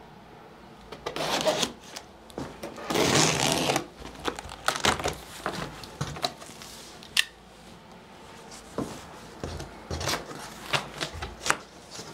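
Cardboard shipping box being opened by hand: two longer tearing, scraping bursts about a second and three seconds in, then a run of sharp clicks, taps and rustles as the cardboard flaps are pulled open.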